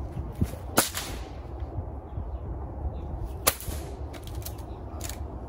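Two air rifle shots, sharp cracks about two and a half seconds apart, fired at iguanas in the trees.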